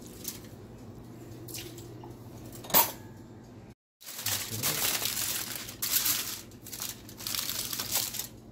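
Aluminium foil crinkling as it is handled and folded by hand. Faint handling with one sharp click is heard first; after a brief dropout, louder irregular crinkling fills the second half.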